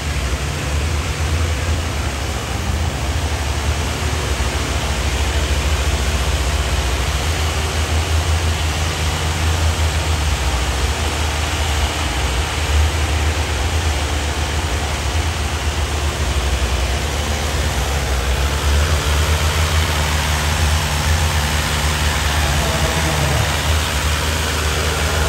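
Diesel tractor engine running hard under load while dragging a disc harrow through ploughed soil: a steady, wavering low drone with an even hiss over it.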